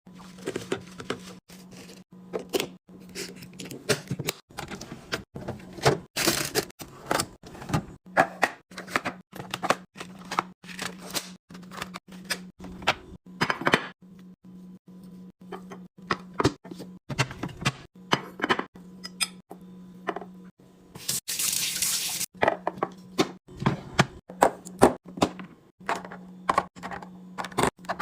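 Containers, jars and lids clicking and knocking together as a fridge is restocked, with a few short stretches of liquid pouring, the longest about three quarters of the way through. A steady low hum runs underneath.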